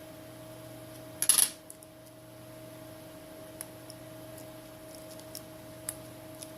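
A short, light clatter of a small hard object set down or dropped on a hard work surface about a second in, followed by a few faint clicks. A steady low hum runs underneath.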